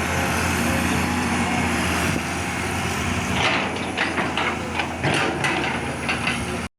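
Excavator's diesel engine running steadily, with a series of short knocks and rattles over it in the second half. The sound cuts off suddenly near the end.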